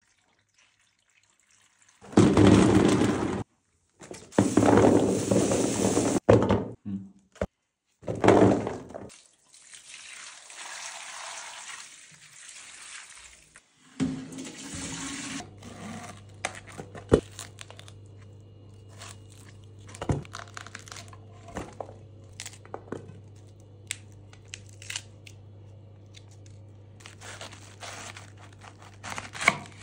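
Brine poured from a metal pot into large glass jars of vegetables, in three short loud pours split by cuts, then a quieter splashing trickle. In the latter half a knife cuts into a cabbage on a wooden board, giving scattered sharp clicks over a steady low hum.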